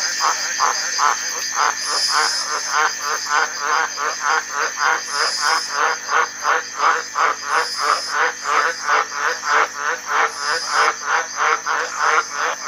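Tree frogs calling in a rapid, even series of short croaks, about three or four a second. Behind them run a steady high-pitched whine and a brighter chirp every second or two.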